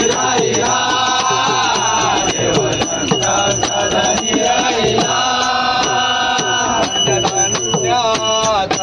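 Men singing a Marathi abhang, a Varkari devotional song, drawing out two long held notes, over a fast, steady beat of sharp percussion strikes.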